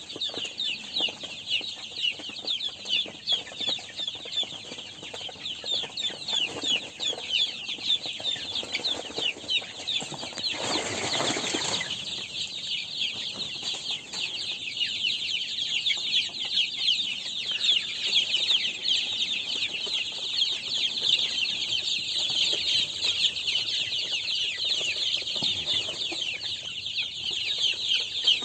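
A pen full of young chicken chicks peeping nonstop, a dense high chorus of short chirps. About ten seconds in comes a brief burst of rustling noise.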